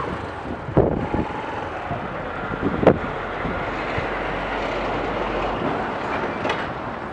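A lorry towing a trailer drives past close by, a steady rumble with the clatter of the trailer, over the Yamaha YBR 125 motorcycle's engine and wind on the microphone. A few sharp knocks stand out, about a second in, about three seconds in and near the end.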